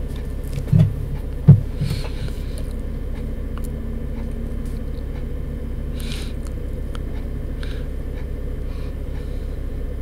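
Doosan 4.5-ton forklift's engine running steadily as heard from the operator's cab, with two short knocks about a second in.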